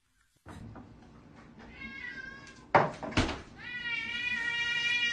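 Domestic cats meowing: a few short, wavering meows about two seconds in and two loud knocks, then one long, steady, drawn-out meow from about three and a half seconds on.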